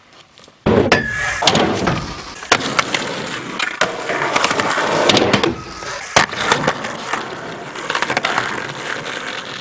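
Skateboard wheels rolling on concrete pavement, starting suddenly under a second in, with sharp clacks of the board hitting the ground several times.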